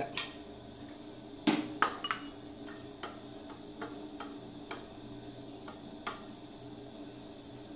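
Light clinks and taps of a stainless steel plate being handled while batter is dabbed onto bread by hand, with one louder ringing clank about one and a half seconds in, a second knock just after it, then small scattered clicks.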